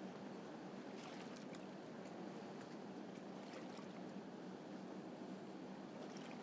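Faint steady outdoor background hiss with a few soft clicks: the broadcast's ambient sound with the commentary cut out.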